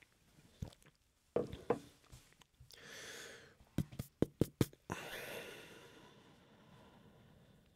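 A few light knocks, then a quick run of about five keyboard key clicks within a second, with audible breaths in between.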